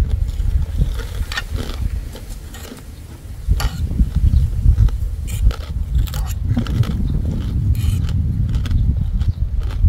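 Close-up eating: crunchy chewing of papaya salad and pork cracklings, with a fork clicking and scraping on the plate in a scatter of short sharp sounds. Under it runs a loud, uneven low rumble that sags for about a second some two seconds in.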